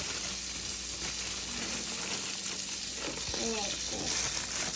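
A hot frying pan sizzling steadily, like fat or oil frying on the stove.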